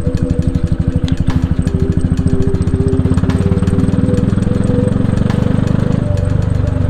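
Motorcycle engine running while riding, a fast steady firing pulse that eases off near the end, with a few light clicks.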